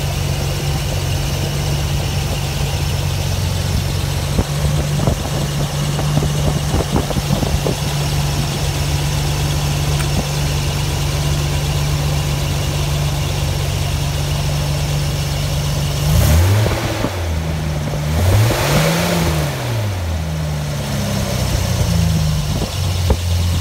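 1999 Nissan GU Patrol's 4.5-litre straight-six petrol engine idling steadily, then revved three times from about sixteen seconds in, each rev rising and dropping back to idle.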